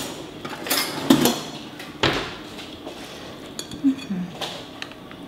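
Soft kitchen handling sounds as grape leaves are picked over and laid out for rolling tolma: a few light knocks against a dish, about a second and two seconds in, with rustling in between.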